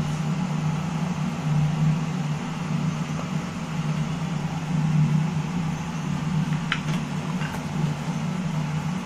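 Steady low mechanical hum, with two faint clicks about two thirds of the way in.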